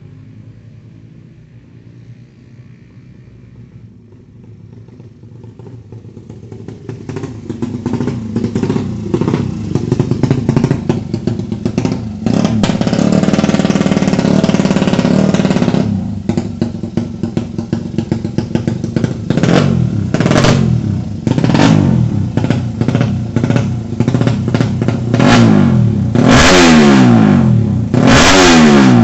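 Suzuki Satria FU drag bike with a 200 cc engine, faint at first and growing loud over several seconds, then revved hard with short throttle blips and repeated quick climbs in pitch near the end.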